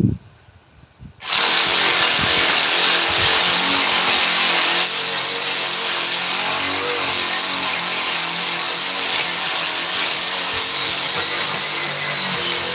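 A handheld power tool starts about a second in and runs steadily with a loud, hissing whine, easing slightly about five seconds in.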